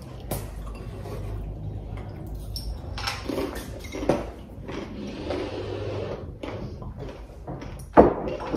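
Glass Vodka Cruiser bottles being opened and handled on a table: scattered light clicks and knocks, with a soft hiss lasting about a second and a half midway.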